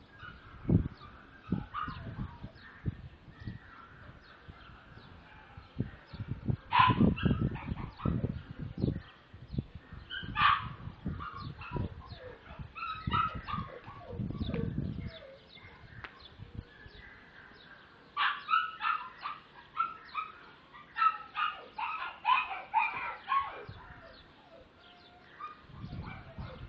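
Two-month-old pointer puppy whimpering and yipping in several short bouts of quick high calls, with low rumbling bumps in between.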